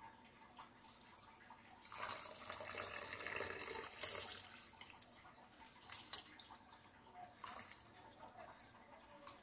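Water poured from a plastic jug into a bowl of rice, running for about two and a half seconds starting about two seconds in, then faint short splashes as a hand swishes the rice in the water to wash it.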